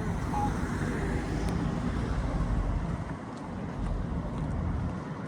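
Wind buffeting the microphone over a low rumble from a boat under way, gusting louder and softer.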